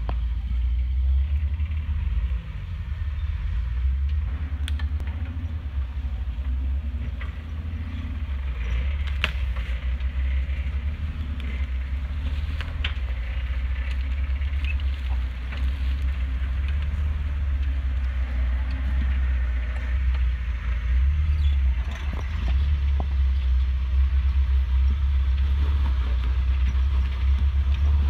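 Jeep Wrangler TJ engine running at low revs as the Jeep rock-crawls over boulders, a steady low rumble. A few sharp clicks and knocks come through, and it gets a little louder over the last several seconds as the Jeep comes close.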